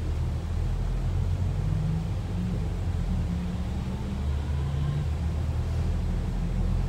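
Volvo B9TL double-decker bus's six-cylinder diesel engine and drivetrain running as the bus drives, heard from the upper deck: a steady low drone whose engine note shifts a little in pitch partway through.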